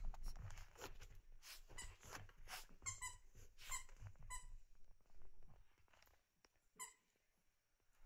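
Squeaky dog toy squeaking in a handful of short squeaks, a quick run about three to four and a half seconds in and one more near the end, over the soft scuffling of small dogs playing on a blanket.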